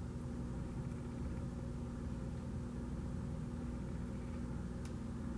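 Steady low background hum with a faint constant tone, the room's background noise; one faint click near the end.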